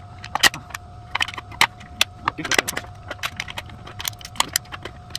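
Irregular clicks, taps and crinkles of plastic toy packaging being handled and pried apart to free a mini RC car, over a faint steady hum.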